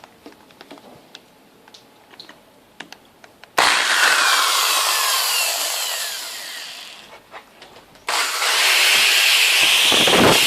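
Electric drill starting a hole in a metal luggage-rack bracket: a run of drilling begins suddenly about three and a half seconds in and dies away after about three seconds, then a second run starts about a second later. Light handling clicks come before the first run.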